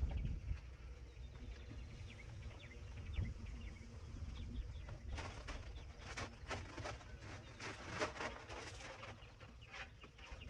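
Birds calling, with a quick run of short chirps from about five to nine seconds in, over a low steady rumble.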